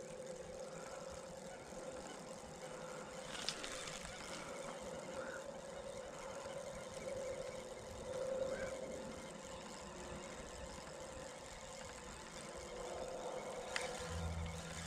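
A faint, steady engine-like hum, with two light clicks, one a few seconds in and one near the end.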